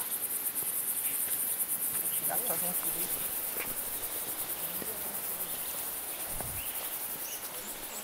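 Insects chirring in the vegetation: a steady, high-pitched, rapidly pulsing drone.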